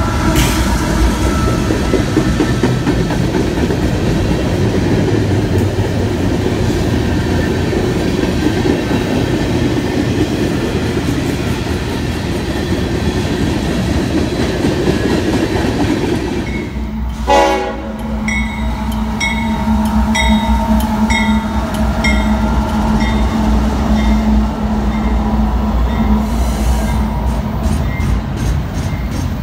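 Freight train cars rolling past close by, a steady rumble and rattle of boxcars and hopper cars on the rails. A little over halfway the sound changes abruptly to a double-stack intermodal train's cars passing, with a steady hum and a regular click of wheels over rail joints.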